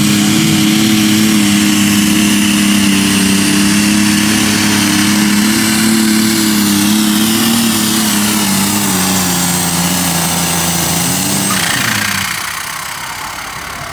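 Pulling tractor's engine running flat out while hauling a weight-transfer sled, a loud steady drone whose pitch eases down over the last few seconds of the run. It falls away about twelve seconds in as the pull ends.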